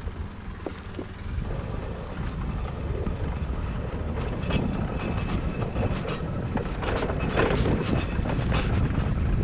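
Motor scooter being ridden over a bumpy dirt track: its engine runs under heavy wind noise on the microphone, with scattered knocks and rattles, and the sound grows louder through the stretch.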